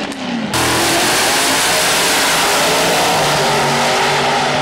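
Pro Modified drag-racing V8 engines at full throttle down the strip, a loud, dense engine noise that fills the camcorder's microphone. About half a second in, the sound jumps abruptly to this louder level.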